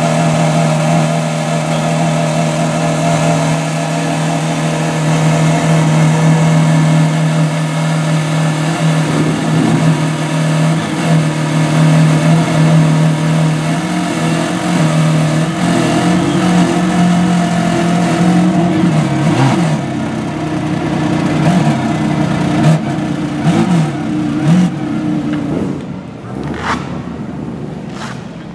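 Maserati MC12's V12 engine idling steadily, with a few quick revs that bend the pitch in the last third; near the end the engine sound drops away.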